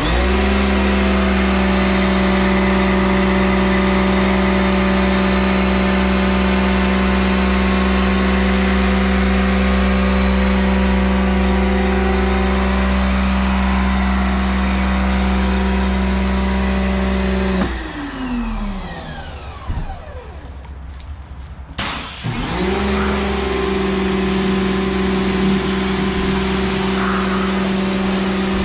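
Kärcher electric pressure washer's motor and pump running steadily. About two-thirds of the way through it shuts off and winds down with a falling pitch, as the spray-gun trigger is let go, then starts up again abruptly a few seconds later.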